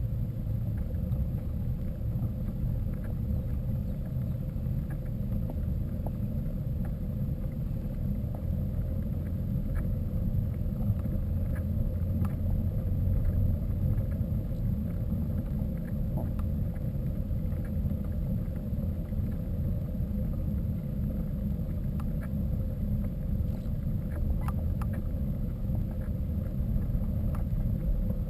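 Steady low rumble of wind buffeting the camera microphone during a mountain-bike ride, with scattered faint clicks and rattles.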